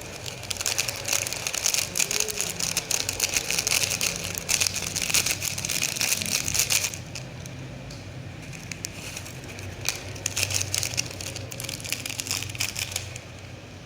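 Crinkly plastic snack sachet being handled and squeezed as the Chitato topping is poured out, crackling in two spells: a long one of about six seconds and a shorter one about ten seconds in.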